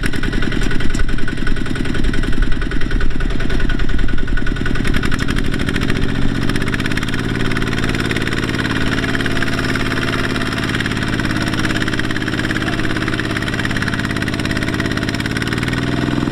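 Farm diesel engine running: rough and uneven for the first several seconds, then settling into a steady, even drone from about seven seconds in.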